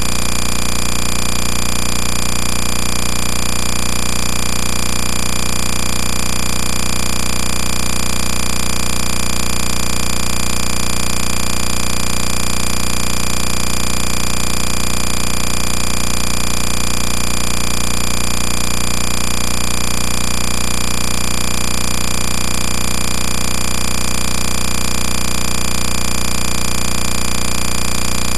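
A loud, unchanging mechanical running noise, a steady whirring rattle that holds the same pitch and level throughout.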